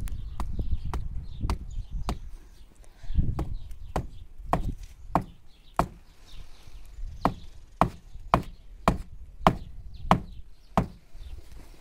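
Hand hammering at the base of a tarp shelter: a steady run of sharp knocks, a little under two a second, louder in the second half, as if a peg or stone is being pounded in to anchor the tarp's rope.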